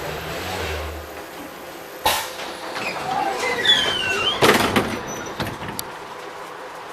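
Articulated tram standing at a stop with its doors open: a low hum that stops about a second in, a sharp knock about two seconds in, brief squeals, and a louder knock about four and a half seconds in.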